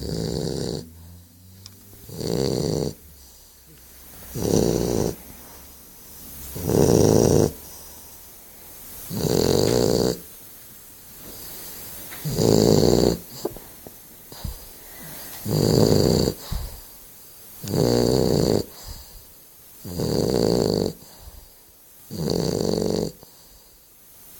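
Loud, regular snoring: about ten snores, each about a second long, coming every two to two and a half seconds.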